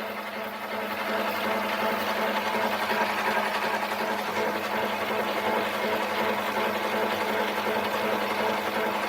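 Harbor Freight mini lathe running steadily under cut: a constant motor hum with a hiss of the cut.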